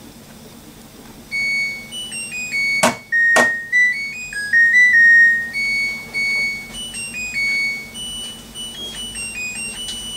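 LG VC2 AI DD washer-dryer playing its end-of-cycle melody, a tune of electronic beeps, to signal that the wash is finished. The tune starts about a second in and stops near the end. About three seconds in, two sharp clicks half a second apart are the loudest sounds.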